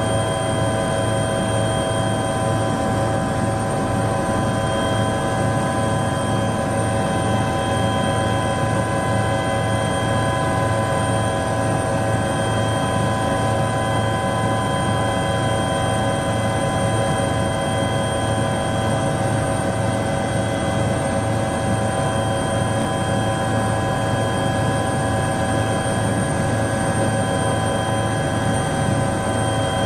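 Helicopter in steady flight heard from inside the cabin: a loud, even low drone from the rotor with several steady high-pitched whines from the engine and drivetrain over it.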